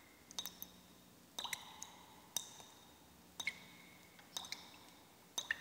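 Slow dripping: a small cluster of sharp plinks about once a second, each ringing briefly, over a faint steady low hum.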